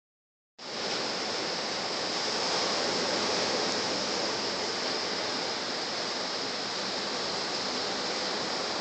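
Ocean surf breaking on the shore: a steady hiss of waves.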